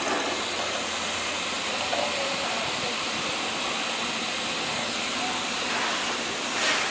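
A steady hiss, swelling briefly louder near the end.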